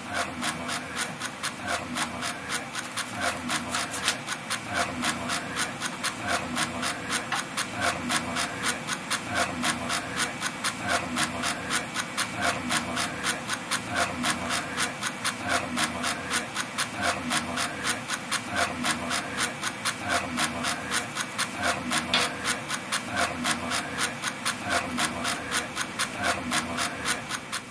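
Rapid, even rhythmic scratching or rasping, several strokes a second, with a softer low pulse about every second and a half.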